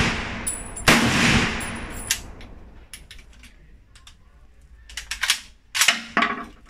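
A single shot from an M1 Garand .30-06 rifle about a second in, echoing and dying away over about a second, following on from the tail of the previous shot. Near the end come several quieter, sharp metallic clacks with a brief ring as the rifle's action is handled.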